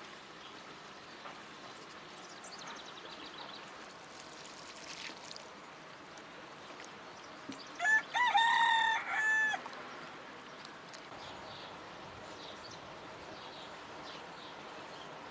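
A rooster crows once in the middle, a loud call of nearly two seconds broken into a few held parts, over a quiet background.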